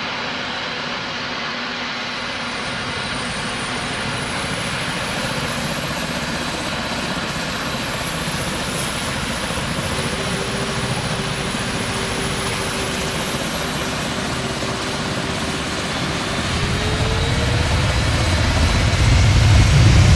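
Jet aircraft engines running, with a high wavering whine over a steady rush. A deeper tone joins about halfway, and over the last few seconds a low rumble builds and the sound grows louder.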